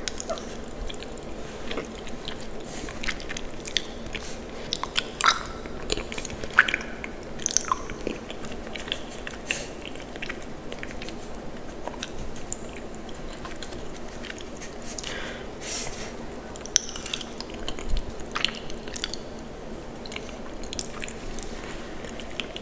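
Close-up eating of cheesy macaroni and cheese: chewing, with many short, irregular mouth clicks and smacks.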